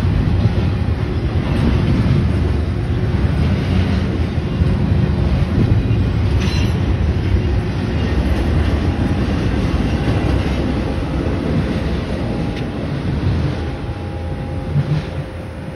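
Norfolk Southern double-stack intermodal freight train rolling past: a steady rumble and rattle of the well cars' wheels on the rails, with a sharp clank about six seconds in. The sound eases off slightly near the end.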